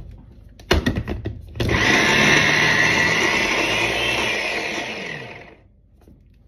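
Electric mini chopper with a glass bowl whirring for about four seconds as its blades chop raw cassava cubes, then falling in pitch as the motor winds down. A few clunks come about a second in, as the motor head is set on the bowl.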